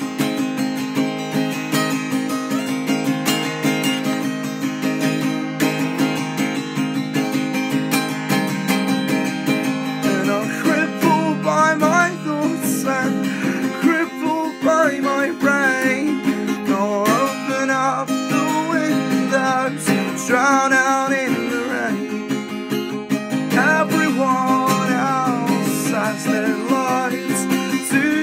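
Acoustic guitar music with steady strummed chords. A wavering melody line comes in about ten seconds in.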